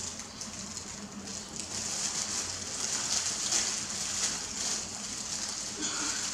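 Rustling and crackling of thin plastic food-prep gloves handling a rice paper wrapper, over a steady high hiss.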